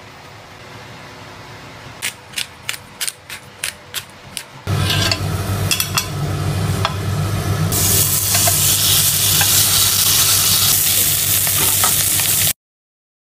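A run of short sharp taps, then a salmon head sizzling loudly in a hot ridged grill pan. The sizzle turns brighter and hissier about halfway through, then cuts off abruptly near the end.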